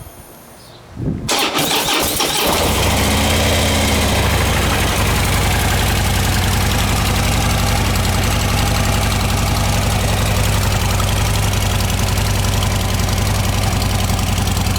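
Stock Harley-Davidson Dyna Wide Glide (FXDWG) V-twin cranked and started about a second in, then idling steadily. It has a mellow note through its stock exhaust and air filter.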